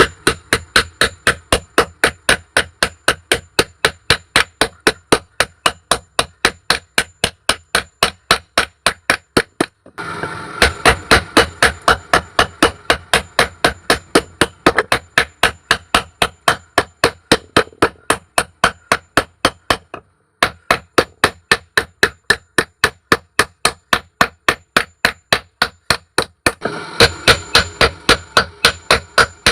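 Blacksmith's hammer striking metal in a steady, even rhythm of about three blows a second. The run breaks off abruptly about 10, 20 and 27 seconds in and picks straight up again.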